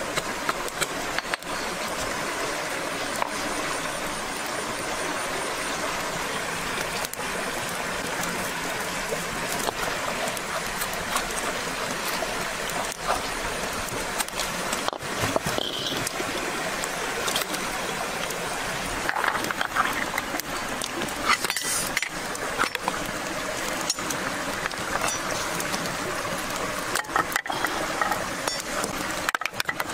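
A steady rushing hiss, like running water, with scattered light knocks and clinks.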